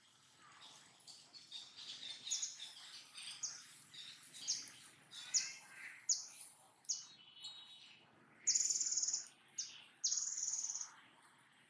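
Pet capuchin monkey calling in high-pitched chirps: a run of short calls, many falling in pitch, then two longer, louder squeals of about a second each near the end.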